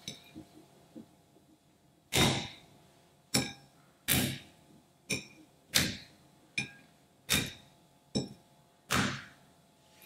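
Green rubber frog-shaped squishy toy being pressed and squashed against a ceramic bowl: five longer squishing presses, roughly one every 1.7 seconds, each followed by a short sharp click.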